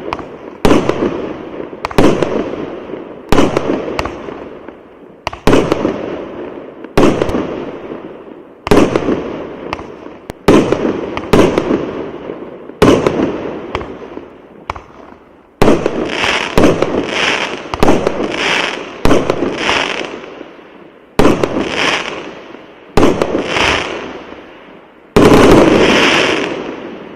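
Consumer firework battery (cake) firing shot after shot, a sharp bang roughly every one and a half to two seconds, each fading away over a second or so. In the second half the bursts turn brighter and busier, and the loudest, longest burst comes near the end.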